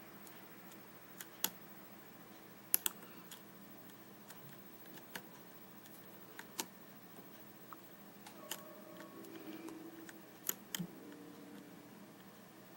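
Scattered sharp metallic clicks, about a dozen at irregular intervals, from a lock pick and tension wrench working the spool pins of a Corbin euro cylinder as the pins set and drop.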